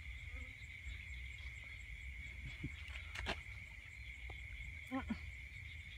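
Night insect chorus: crickets chirring steadily in grass, with a faint, fast ticking above it. A single sharp click comes about three seconds in, and a short low call near the end.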